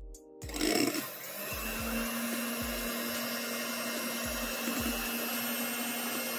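Electric hand mixer running steadily, its twin beaters whipping eggs and sugar into a light foam for a sponge cake. It starts about half a second in, and a few dull knocks come through the motor noise.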